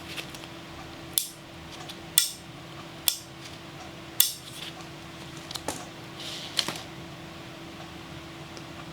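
Sharp clicks and clacks of hard parts being handled, about six separate knocks spread unevenly, the loudest in the first half, over a faint steady hum.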